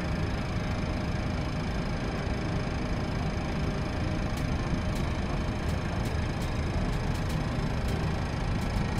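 Steady rumble and hiss in a Boeing 737 cockpit as the air starter turns engine 2 over during its start, with faint steady tones. Faint high ticks come in from about four seconds in.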